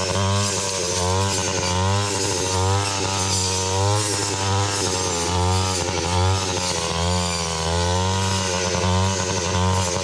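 Small two-stroke engine of a handheld power tool running under load, its revs rising and falling over and over as it cuts.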